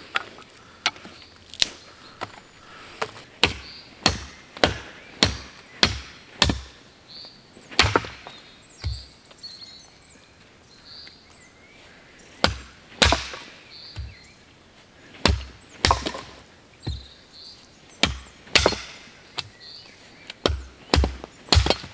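Dry firewood sticks being cracked and snapped: a series of sharp wooden cracks and knocks at about one or two a second, with a pause of a few seconds midway.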